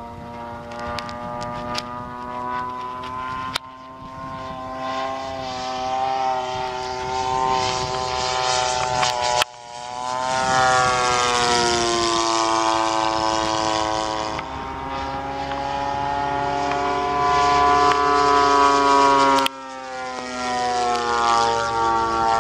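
Single-cylinder two-stroke Zenoah G62 gas engine and propeller of a giant-scale RC airplane in flight. Its note rises and falls in pitch as the plane passes, and it is loudest on a close pass near the middle. The sound breaks off abruptly a few times.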